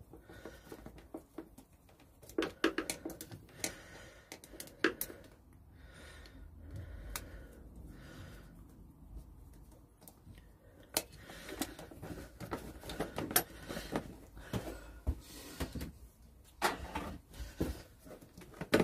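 Scattered clicks, knocks and rattles of hand tools and plastic motorcycle airbox parts being worked loose, with a stretch of scraping partway through and a busier run of knocks later on.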